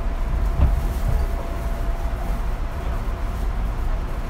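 Fujikyu 6000 series electric train (a rebuilt ex-JR 205 series EMU) running, a steady low rumble.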